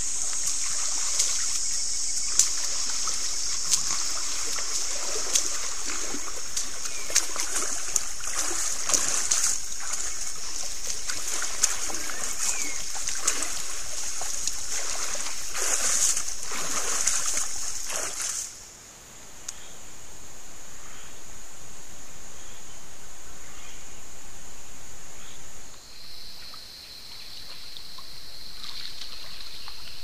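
African forest elephants wading in a shallow forest creek: water splashing and sloshing under their feet, over a steady high-pitched insect drone. About 18 seconds in the sound cuts; the splashing stops and the insect drone goes on alone, dropping in pitch at a second cut near 26 seconds.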